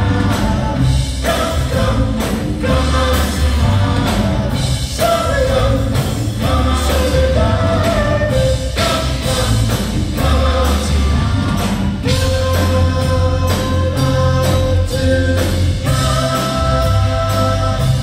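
Live band playing a song, with men singing long held notes over electric bass, drums and keyboards.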